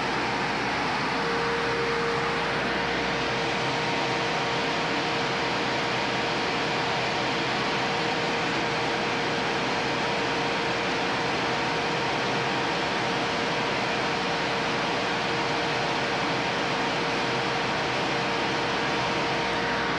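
Laser cutter at work cutting a wooden sheet: a steady rush of air from its exhaust fan and air assist, with a constant hum that comes up about a second in.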